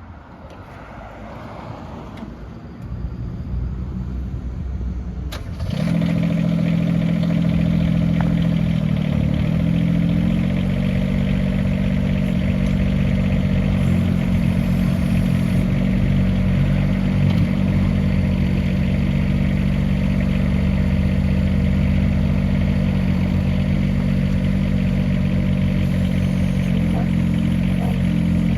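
Kubota diesel engine of a mini excavator: a low rumble that steps up about three seconds in, then jumps suddenly to steady high-throttle running about five seconds in. Its pitch dips briefly now and then, as when the hydraulics take load.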